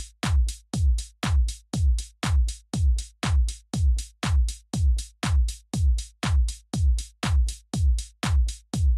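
Electronic background music driven by a steady drum-machine kick, about two beats a second.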